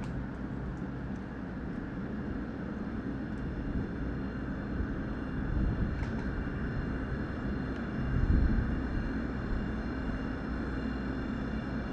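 Sci-fi shipyard ambient soundscape: a steady low, engine-like rumble and drone with faint high steady tones and a few soft clicks. The rumble swells louder twice, about six and about eight seconds in.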